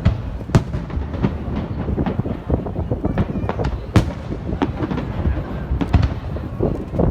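Aerial fireworks going off in quick, irregular succession: many sharp bangs and crackles over a continuous low rumble, with the loudest reports about half a second in, about four seconds in and about six seconds in.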